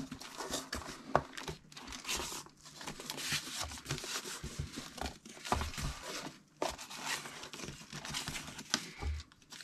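Hands folding a strip of corrugated cardboard around a book sealed in a plastic bag: cardboard scraping and creasing and the plastic bag crinkling, in irregular rustles with a few sharp clicks.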